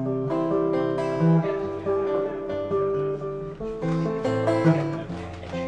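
Live acoustic guitar strumming with a harmonica playing held notes over it, in an instrumental blues passage.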